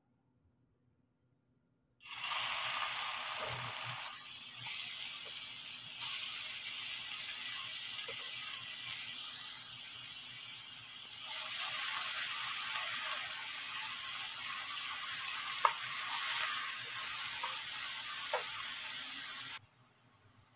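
Chopped onions sizzling in hot oil in a frying pan, with small scattered pops. The sizzle starts suddenly about two seconds in and cuts off sharply near the end.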